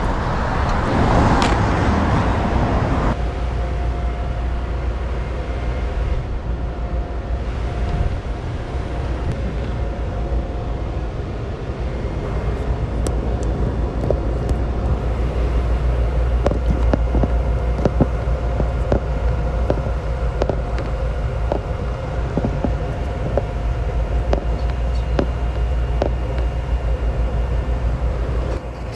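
A rushing hiss for about the first three seconds that cuts off suddenly. Then the steady low rumble and hum of Chicago 'L' rapid-transit train cars in a rail yard, with scattered sharp clicks.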